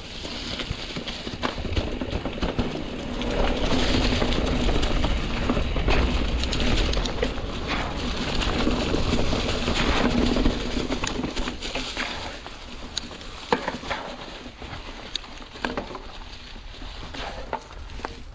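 Mountain bike riding over a trail covered in dry fallen leaves: tyres rolling and crunching through the leaves with rushing noise and scattered clicks and rattles from the bike. It is louder from about 3 s to 11 s in and quieter near the end.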